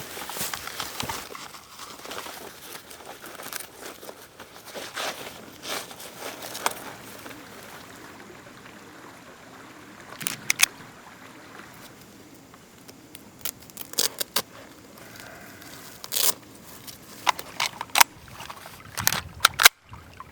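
Gear being handled: irregular sharp clicks and rustles over a faint outdoor background, the clicks coming thicker in the second half.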